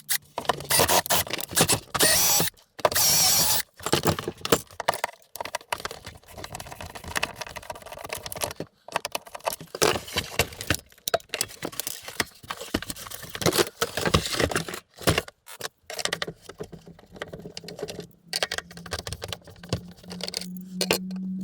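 Clattering, clicking and rattling of plastic housing parts, screws and tools being handled while a vacuum cleaner is taken apart. A low steady hum joins about three-quarters of the way through.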